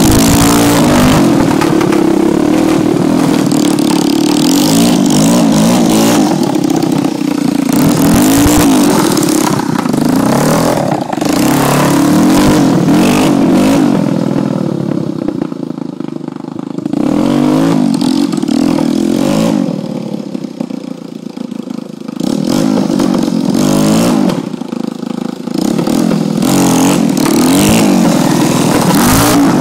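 Yamaha Warrior 350 ATV's single-cylinder four-stroke engine revving up and down as it is ridden around, fading twice in the middle as it moves away and loud again near the end as it comes close.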